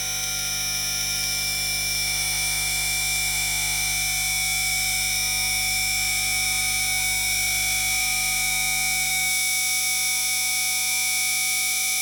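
Power-line hum sound effect: a steady electrical hum and buzz of several fixed tones at once, with a hiss over it. Its lowest hum thins out about eight or nine seconds in.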